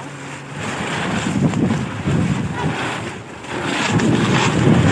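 Strong storm wind buffeting the microphone in a low, noisy rumble, swelling in gusts about a second in and again near the end.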